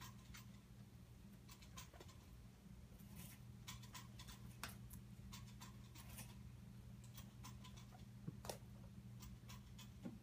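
Faint, scattered clicks and rustles of guinea pigs moving about their cage bedding and hay, over a steady low hum.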